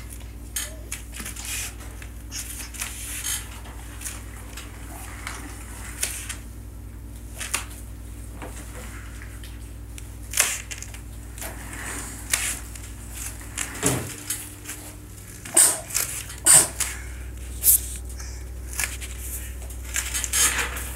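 Scattered light clicks and knocks, as of small objects being handled, over a steady low hum; a few louder knocks come in the second half.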